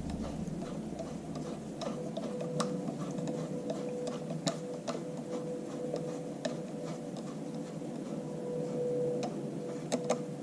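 Screwdriver turning the brake-band adjusting pin on a Farmall Super MTA's independent power take-off: scattered small metallic clicks and ticks at irregular intervals. A faint steady hum runs under them for most of the time.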